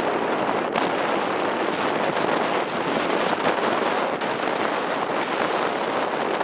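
Strong wind rushing over the microphone aboard a moving ferry, a steady loud noise with the boat's running sound beneath it.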